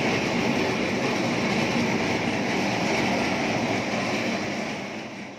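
Steady machinery noise, an even rumble and hiss with no clear rhythm, fading out in the last second.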